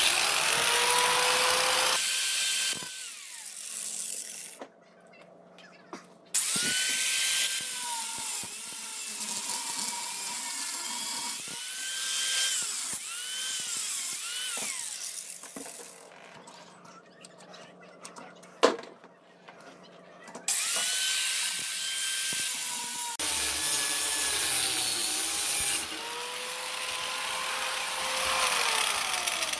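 High-speed power cutting tool cutting through the leftover steel ring of a broken scooter freewheel on the hub. It runs in several bouts, its whine rising as it spins up, dipping as it bites into the metal and falling away as it slows, over a loud hiss of grinding. There is a sharp click about two-thirds of the way through.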